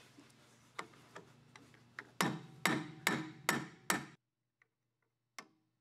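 Small hammer tapping a steel roll pin into the PTO lever and rod inside a BCS two-wheel tractor's transmission housing: a few light taps, then five sharp metal-on-metal strikes about two a second, each ringing briefly, before the sound cuts off suddenly.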